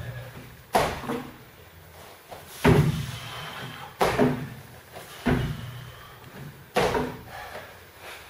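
Five heavy thuds about one every one and a half seconds: feet landing in repeated box jumps.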